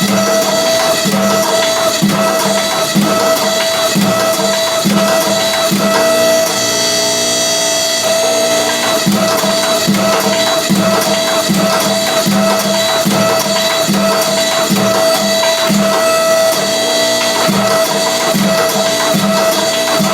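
Background music with a steady beat and percussion.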